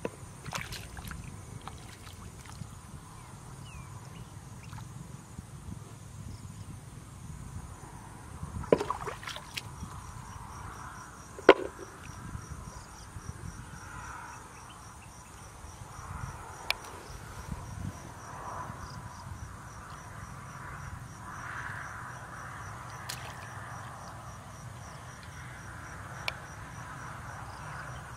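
Crickets and other insects trilling steadily, with an evenly pulsed chirp joining in partway through, over shallow muddy water being sloshed as someone wades and gropes for fish by hand. A few sharp splashes stand out, the loudest two close together near the middle.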